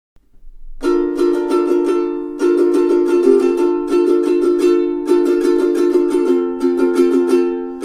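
aNueNue US-200 Moon Bird soprano ukulele being strummed, starting about a second in: a quick, steady strumming rhythm of chords that change every couple of seconds.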